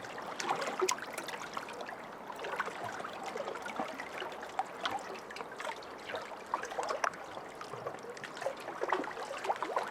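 Small lake waves lapping, a steady wash of water broken by frequent small splashes.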